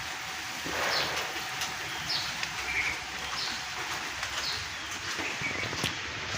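Small birds chirping repeatedly in short, high calls over a steady hiss.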